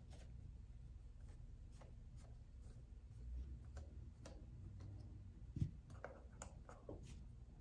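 Faint scattered clicks and light scraping of a small screwdriver working the tiny screws that hold the rotor in an opened Optispark distributor. There is one soft thump about five and a half seconds in, over a low steady hum.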